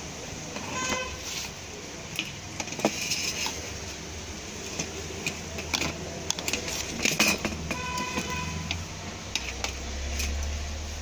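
Scattered clicks and light knocks from hands handling a sheet-metal tube-light batten and threading its wires through it, over a steady low rumble. Two brief pitched tones sound, about a second in and again near eight seconds.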